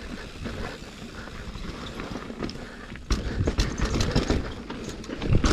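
Mountain bike descending a dirt trail: tyre rumble with the chain and frame rattling over roots and rocks. About three seconds in comes a hard knock, as from landing a small drop, and the rattling gets louder after it.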